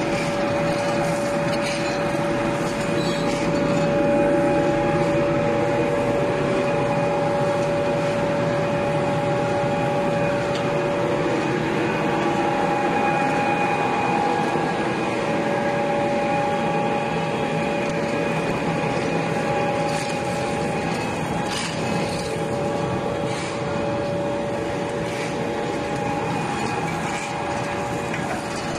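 Wood and rice husk pellet mill running under load, pressing husk into pellets: a steady machine drone with a constant whine over it and a few sharp clicks about two-thirds of the way through.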